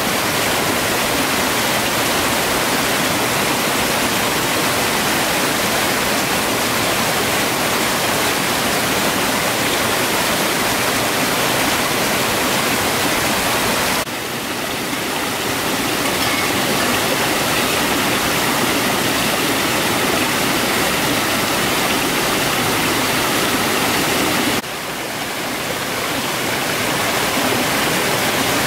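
Rushing water of a small rocky stream spilling over a low cascade, a steady hiss. It dips twice, about halfway and near the end, then builds back up.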